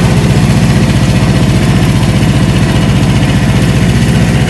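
Engine idling steadily, with an even low throb.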